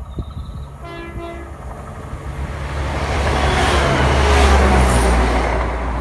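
A train gives a short horn blast about a second in, then passes along the line, its rumble and rush building to a peak a little after halfway and easing off near the end.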